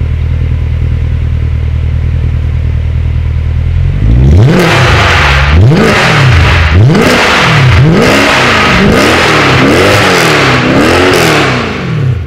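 Mercedes C63 AMG 507's 6.2-litre V8 through a full Armytrix exhaust with its valves open. It idles steadily, then from about four seconds in it is revved again and again in quick blips, the pitch rising and falling each time.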